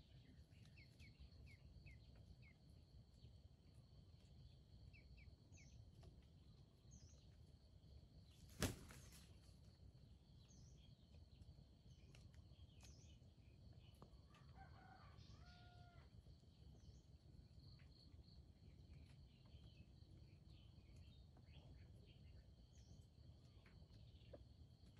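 Faint jungle ambience: a steady insect drone with scattered small bird chirps. A single sharp knock about a third of the way in is the loudest sound, and a short low call from a red junglefowl comes a little past the middle.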